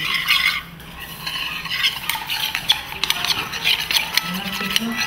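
Metal spatula stirring and scraping in a metal bowl as polymethylmethacrylate bone cement is mixed by hand from its powder and liquid components: an irregular scraping with light metallic clicks, easing off briefly about a second in.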